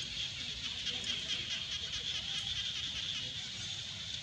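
Steady, high-pitched buzzing of an insect chorus, pulsing rapidly, over a low outdoor rumble.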